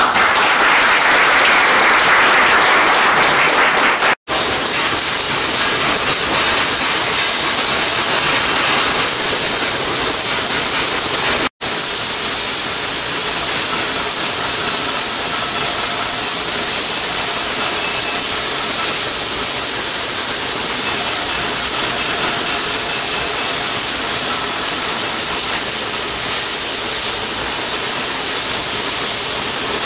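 Applause for the first few seconds, then arc welding: a steady, loud crackling hiss from the welding arc as the bead is laid, broken only by two brief cuts.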